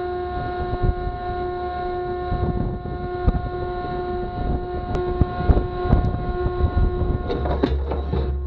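Shipboard machinery humming on a destroyer's deck with several steady tones, over low rumble and wind on the microphone. A few sharp clicks and knocks come near the end.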